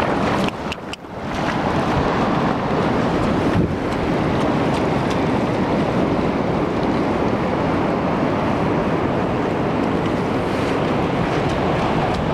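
Steady rushing of wind on the microphone over the wash of surf and shallow water, dipping briefly about a second in.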